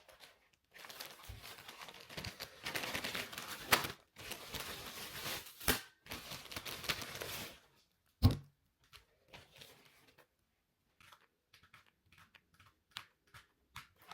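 Plastic packaging being crinkled and torn in stretches for about seven seconds, then one sharp knock, followed by scattered light clicks and taps.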